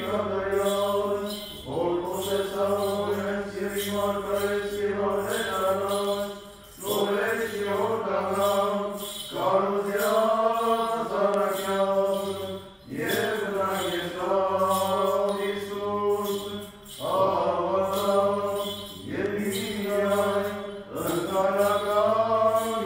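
Armenian liturgical chant: a voice sings a melismatic line in phrases of a few seconds, with short breaks between them, over a steady held drone.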